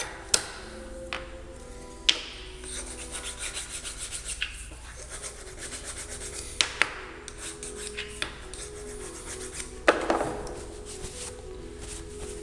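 Metal workpiece being handled in a milling-machine vise: a few sharp metallic clinks and knocks, with a stretch of scraping and rubbing from about two to four seconds in, over a faint steady hum.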